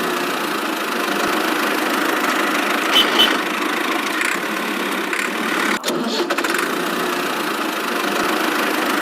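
Small engine of a miniature tractor running steadily, with two brief clicks about three seconds in.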